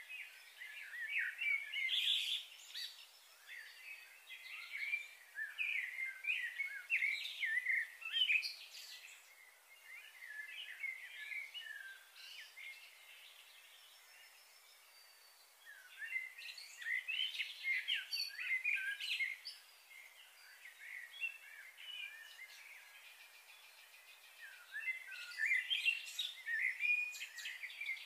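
Small birds chirping and twittering in bouts of a few seconds, with quieter gaps between the bouts.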